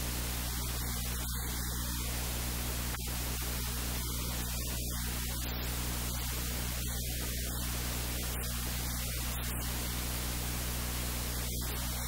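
Steady static hiss with a low electrical hum, unchanging throughout.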